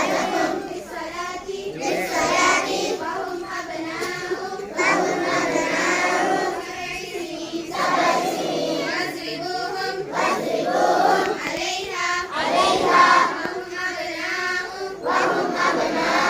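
A group of children singing together, their voices blending with no words picked out.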